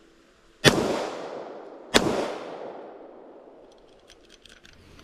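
Two shots from a Ruger Security-9 9mm pistol, about a second and a quarter apart, each trailing off in a long echo. A few faint clicks follow near the end.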